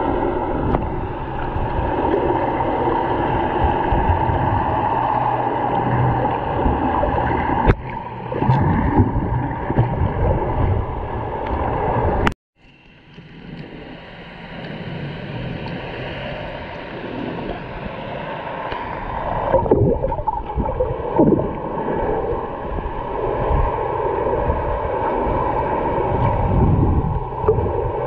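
Muffled underwater wash and gurgle of water against a snorkeler's submerged camera, with a steady drone underneath. About twelve seconds in the sound cuts out after a sharp click, then swells back in.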